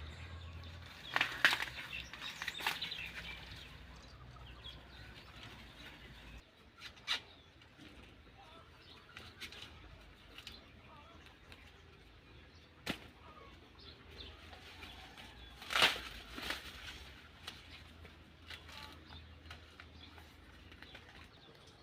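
Sweet corn being picked by hand: dry leaves and husks rustling, broken by a handful of sharp snaps as ears are broken off the stalks, the loudest about a second and a half in and again about sixteen seconds in.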